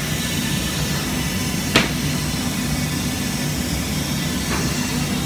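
Multi-head panel profile sanding machine running with a steady hum, with a sharp knock just under two seconds in and a fainter one about four and a half seconds in.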